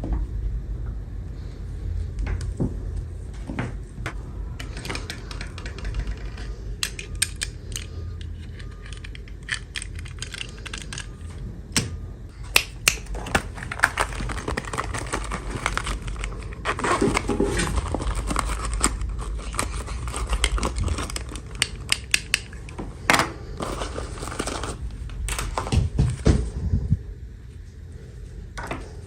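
Hands unboxing small toys: irregular clicks, taps and crinkly rustling of plastic and cardboard packaging, over a steady low hum.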